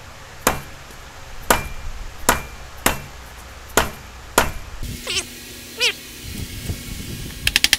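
Plastic mallet striking the cylinder head of a Kawasaki KZ1000 four-cylinder engine, six separate blows about a second apart, to break the head free where the gasket has it stuck to the cylinder. Two short squeaks follow, then a quick run of light taps near the end.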